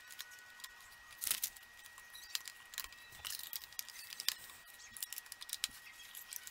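LEGO bricks being handled and snapped together: irregular light plastic clicks and rattles of pieces, with a cluster of louder clatter about a second in. A faint steady high whine sits underneath.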